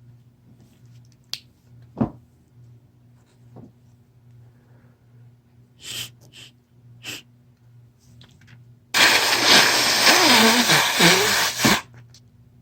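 A person with a head cold sniffs three times, then blows their nose hard into a tissue in one long, loud blast of nearly three seconds with a wavering pitch through it. Two light clicks come before the sniffs.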